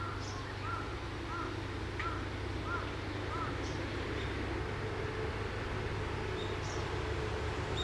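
Wild birds calling: a run of six short, evenly repeated arched notes in the first half, then a few scattered high chirps, over a steady low background hum.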